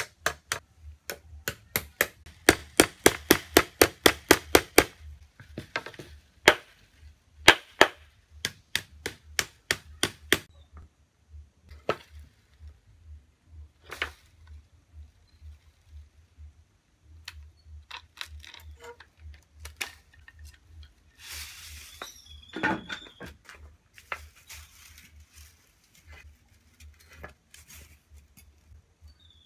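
Hammer knocking on the wooden handle and fittings of a coconut-midrib broom as the bundle is fixed on: a quick run of sharp taps about five a second, then slower single blows about twice a second, then scattered lighter knocks and clicks.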